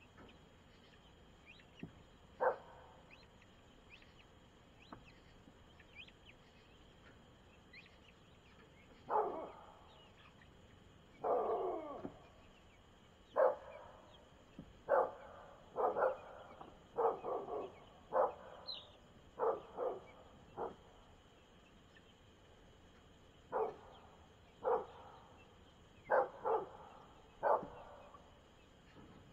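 A dog barking in short, sharp single barks at an uneven pace: one about two seconds in, then a long run of barks, a short pause, and more barks near the end.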